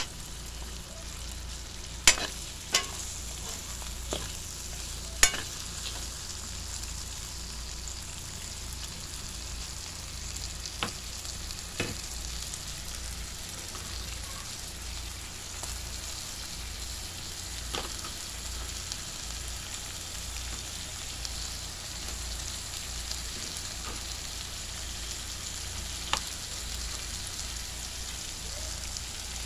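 Sliced hotdogs and meat frying in an aluminium wok, a steady sizzle, with sharp knocks of a cooking utensil against the pan now and then, the loudest about two and five seconds in.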